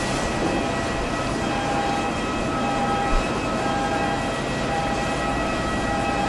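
Jet airliner engines running with a steady, many-toned whine over a low rumble.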